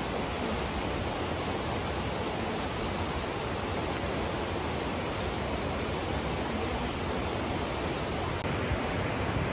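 Steady rushing of flowing water at a hot-spring pool, an even hiss-like wash with no distinct events.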